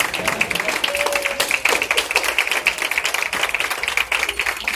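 Audience clapping: many hands applauding in a dense, steady patter.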